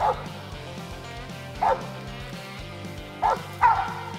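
Squirrel dog barking treed at the base of a tree: single sharp barks every second or two, about four in all, the sign that a squirrel is up the tree. Background music with steady held tones runs underneath.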